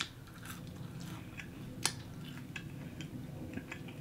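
A person chewing food close to the microphone, with scattered soft wet mouth clicks and one sharper click about two seconds in.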